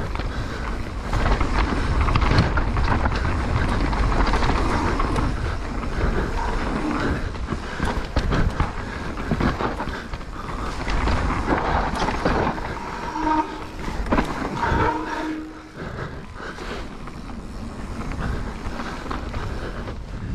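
Mountain bike ridden down a dirt trail: tyres rumbling over the ground and the bike rattling continuously over bumps, with a couple of short squeals a little past the middle.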